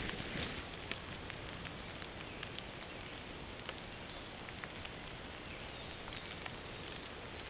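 Bald eagle's wings beating as it comes down to land, fading within the first half second. After that, a steady outdoor hiss with scattered faint ticks and taps.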